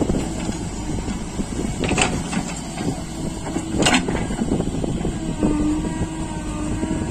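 Tractor diesel engine running under load while pulling a loaded trolley, a dense steady rumble, with two sharp knocks about two and four seconds in.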